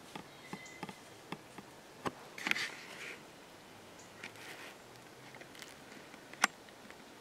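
Quiet woods with scattered soft crackles and snaps of dry leaves and twigs, and one sharper click about six and a half seconds in.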